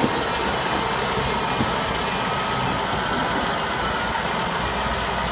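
Diesel engine of a Kirovets K-744 tractor running steadily during its running-in after a full overhaul.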